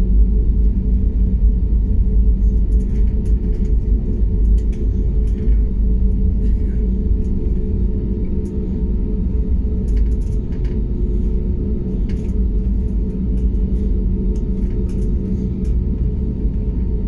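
Cabin rumble of an Airbus A320neo taxiing, its engines at taxi power giving a steady low hum, with faint scattered clicks and rattles.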